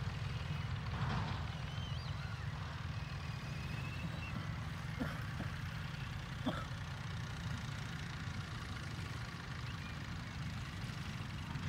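Steady low rumble throughout, with a few faint high chirps and whistles from birds in the first few seconds and a couple of brief sharp sounds around the middle.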